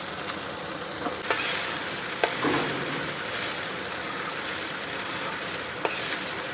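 Flattened rice (poha) sizzling in hot oil with onion, chilli and peanuts in a metal kadhai, stirred with a steel spoon that clinks sharply against the pan a few times.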